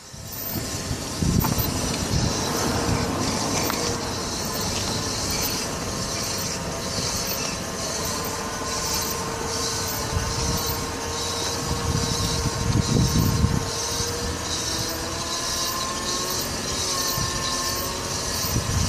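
Metallic scraping squeal from the front wheel of a Nissan Altima coupe as it rolls, pulsing evenly with tyre rumble underneath. The brake heat shield is rubbing against the rotor after a wheel hub replacement.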